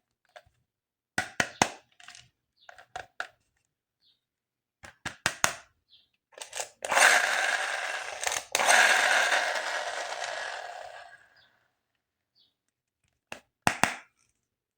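Plastic toy packaging being opened and handled. First come sharp cracks and snaps, then a long crackling tear of about four seconds with a brief break, then two more snaps near the end.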